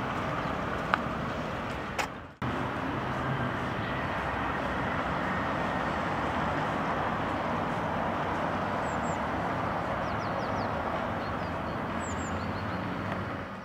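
Steady outdoor street ambience with the hum of road traffic. The sound drops out briefly about two seconds in, and a few faint bird chirps come near the end.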